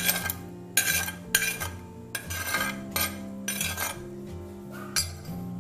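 Metal spoon scraping a soft, wet paste out of a small glazed ceramic bowl in about eight quick, gritty scrapes, the last after a short pause. Steady background music plays underneath.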